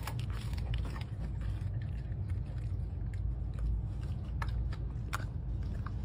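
A dog chewing a beef liver treat, with a few sharp crunches near the start and again later, over the steady low rumble of a bus engine.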